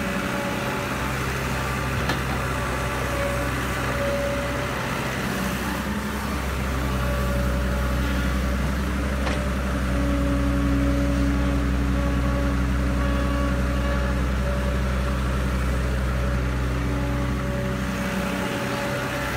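Caterpillar E120B hydraulic excavator's diesel engine running steadily under load as it digs soil and swings buckets of dirt to a dump truck. The hum stays even throughout, with steady pitched tones fading in and out over it and a couple of faint clicks.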